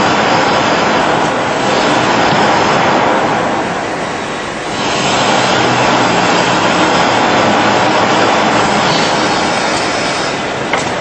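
Loud steady rushing noise of pneumatic assembly-line machinery, easing briefly about four seconds in, with a sharp click near the end.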